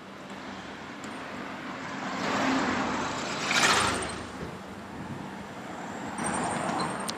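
Road vehicles passing on the street: one car passes close, swelling to its loudest about three and a half seconds in and fading away, and another passes more faintly near the end.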